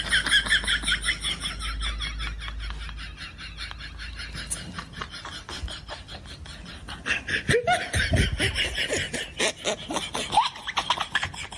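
A person laughing in quick breathy bursts, loudest near the start and again toward the end.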